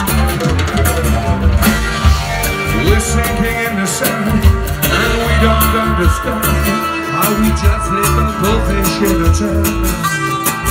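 Live folk-rock band playing an upbeat song: strummed acoustic guitars over drums keeping a steady beat.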